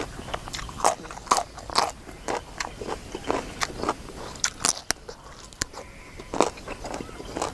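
A person eating: irregular bites and crunchy chewing, many short crisp crunches a few tenths of a second apart.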